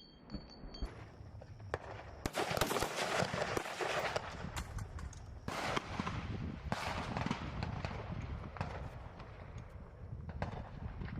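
Several rifles firing single shots at irregular intervals, some overlapping, with the shots coming thickest a couple of seconds in.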